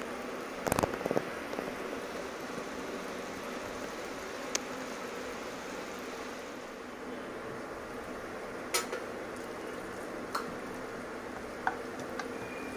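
Steady background hiss with a few sharp clicks and clinks of a pan and cooking utensils. The loudest cluster comes about a second in, and single clicks follow now and then.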